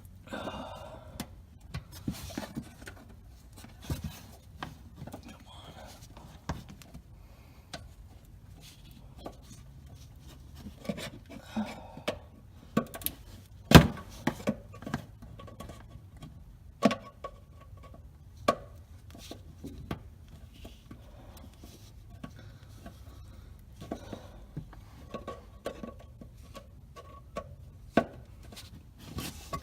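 A flathead screwdriver working at a stubborn plastic bumper retainer clip, scraping and clicking as the clip is twisted and pried. Scattered clicks and rubbing, with one sharp, loud snap about 14 seconds in.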